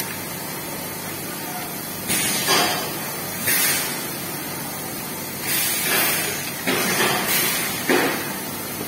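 Steady machine hiss from a bottling and labelling line, broken by about five short bursts of crinkling as plastic water bottles are grabbed and handled in bunches.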